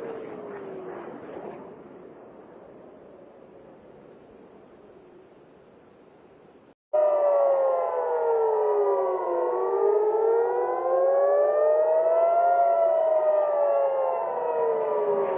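Several civil-defence air-raid sirens wailing together, their tones rising and falling slowly and crossing over each other: a rocket and missile attack warning. They cut in loudly about seven seconds in, after a fading stretch of noise with one falling tone.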